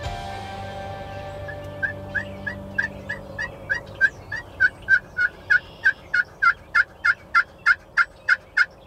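Turkey calling in a long, even run of yelps, about three a second, one note after another at the same pitch, growing louder toward the end.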